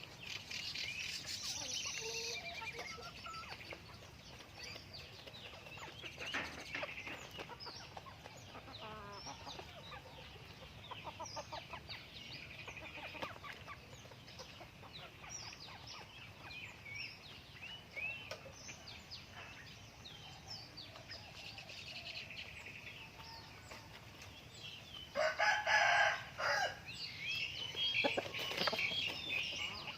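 A flock of chickens clucking and calling with many short high calls throughout, and a rooster crowing loudly once near the end.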